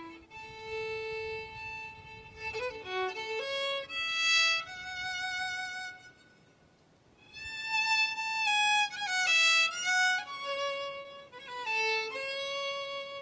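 A fiddle plays a melody in long held notes as the instrumental introduction to a song, pausing briefly about six seconds in before the next phrase.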